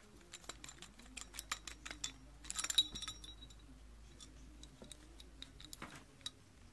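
Hands handling a pair of Nikon Aculon A211 zoom binoculars and their plastic lens caps and strap fittings. A quick run of small clicks and taps fills the first three seconds, with the loudest cluster close to three seconds in, then a few scattered clicks near the end.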